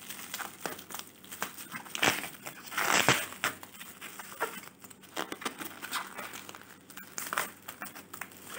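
Plastic bubble wrap crinkling in irregular bursts as hands press and pull it open around a book, loudest about two and three seconds in.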